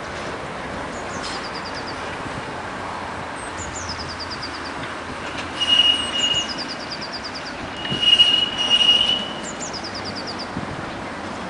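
A tram's steel wheels squeal on the tight curve of a turning loop. There are two loud, steady, high squeals, one about six seconds in and a longer one around eight to nine seconds, over the steady rumble of the tram rolling on the rails. A songbird repeats a short trilled phrase several times in the background.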